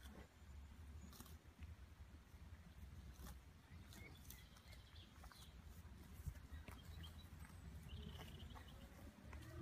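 Near silence: faint outdoor pasture ambience, with a low steady rumble, a few soft clicks and faint high chirps.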